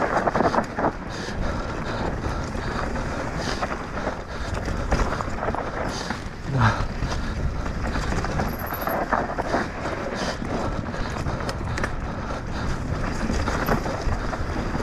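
Enduro mountain bike descending a rough trail at race speed: continuous clatter of the bike and tyres over rocks and gravel, with frequent knocks, and wind buffeting the microphone.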